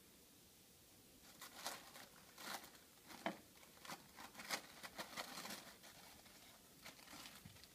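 Clear plastic packing material crinkling as a cat pulls at it with its mouth: a run of short, crisp rustles starting about a second and a half in, a pause, then a few more near the end.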